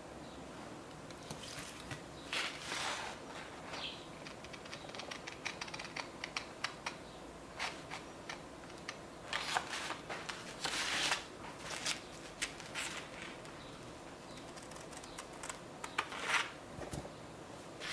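Scissors cutting a sheet of paper, with the paper rustling as it is handled: scattered separate snips and swishes, and a run of light quick ticks a few seconds in.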